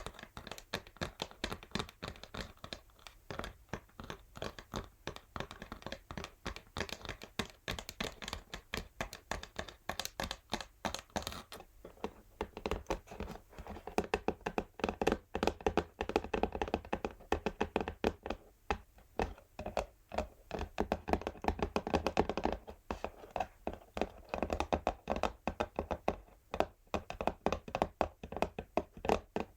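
Natural fingernails tapping rapidly and continuously on an empty textured cardboard box, many light thunks a second, with a denser stretch of scratching across the cardboard about halfway through.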